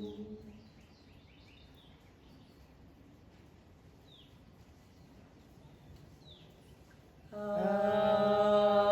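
A long chanted 'AU' healing sound, one voice holding a steady pitch on the out-breath, dies away at the start. A quiet pause follows with a few faint bird chirps, then a new held 'AU' tone begins about seven seconds in.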